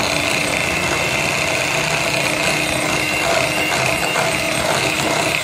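Electric hand mixer running at a steady speed, its beaters whisking a ghee-and-sugar mixture in a glass bowl. The motor gives a steady hum with a high whine.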